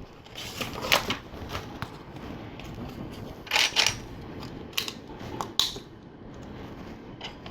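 LEGO plastic pieces clicking as they are handled and pressed together, in a string of irregular sharp clicks, the loudest a quick cluster about three and a half seconds in.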